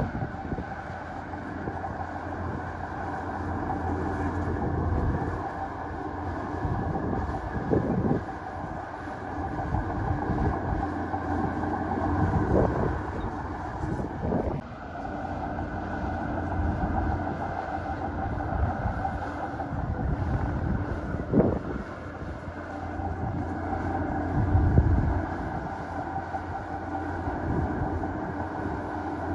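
Heavy diesel earthmoving machinery running steadily, with a few sharp clanks or knocks scattered through it.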